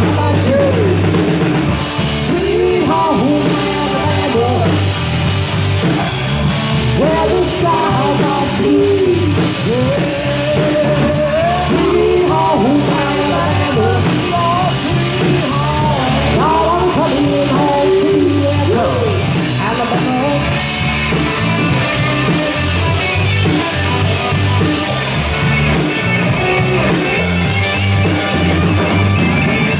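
Live rock band playing, with drum kit and guitar over a steady beat. A melody line slides up and down in pitch through the first two thirds.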